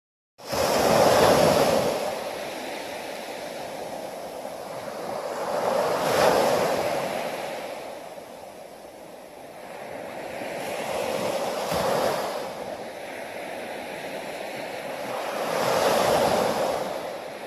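Small waves breaking on a sandy beach and washing up the shore. The surf starts suddenly and swells and fades four times, about five seconds apart.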